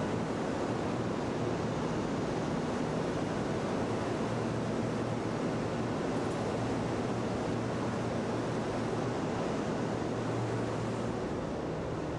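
Cabin running noise of a 300 series Shinkansen train under way: a steady noise with a low hum underneath, easing slightly near the end.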